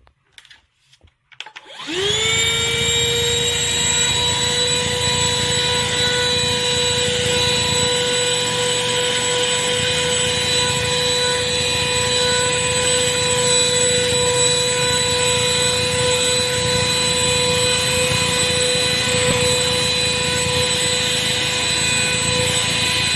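Shark CH701 Cyclone handheld vacuum: a few clicks, then about two seconds in it is switched on and its motor spins up quickly to a steady whine and keeps running.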